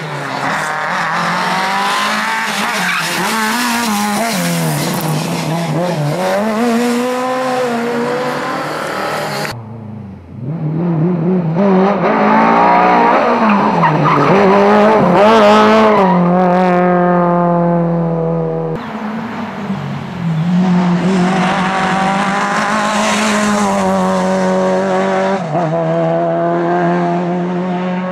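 Lada VFTS rally car engine revving hard, its pitch rising and falling as the driver brakes, changes gear and accelerates, with tyre squeal as the car slides through tight corners. The sound breaks off abruptly twice, about a third and two thirds of the way through.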